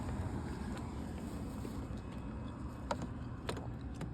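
Steady low outdoor rumble with wind on the microphone, and a few light clicks about three seconds in and near the end.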